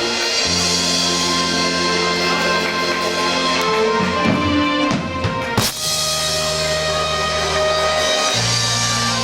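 Music soundtrack with held low bass notes, with a short swooping passage and a sharp hit about five and a half seconds in.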